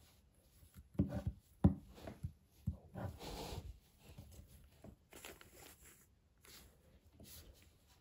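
Unofficial Lego-brick Rubik's-style cube being turned by hand: plastic layers clacking and scraping as they twist, with a few sharp clacks and one longer scrape in the first half, then quieter clicks.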